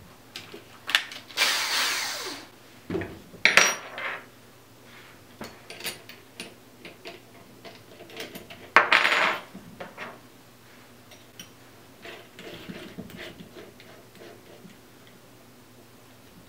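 Clicks, knocks and scrapes from handling a cordless drill and a plastic-and-metal drill guide while fitting them together, with three short bursts of rustling, scraping noise.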